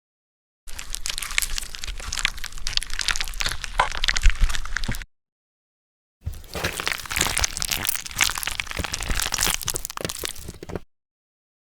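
Gore sound effect of corpse flesh crawling with maggots and worms: dense crackling and crunching. Two takes of about four seconds each, with a silent gap between them.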